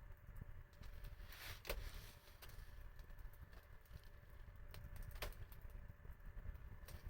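Wood fire crackling faintly, with scattered sharp pops. The loudest pop comes about a second and a half in, another just after five seconds, over a low steady rumble.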